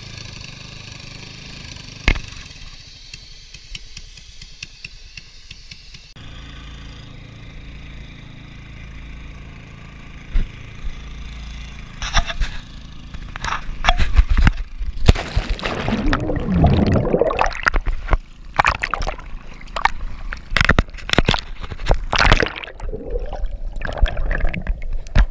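Seawater splashing and bubbling around an action camera as it goes in and out of the water, with irregular knocks and scrapes and a gurgle as bubbles rush past. Before that, a steady low rush of wind and water on the microphone.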